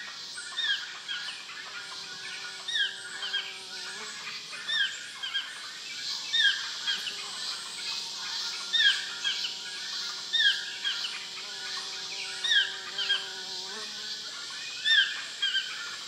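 Toucan giving its territorial call: a yelping note that falls in pitch, repeated about once a second. A steady low drone sounds behind it for a couple of seconds early on and again for several seconds in the middle.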